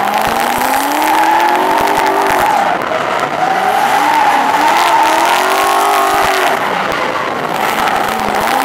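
Drift car's engine revving up and down again and again as it slides sideways, over a long, steady screech of tyres spinning and skidding on the asphalt.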